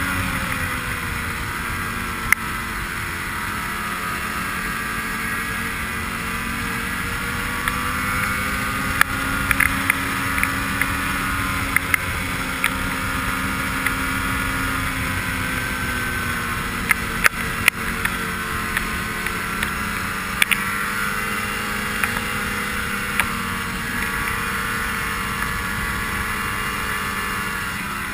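Ski-Doo snowmobile engine running steadily under way, its pitch rising and falling gently with the throttle, with scattered sharp clicks.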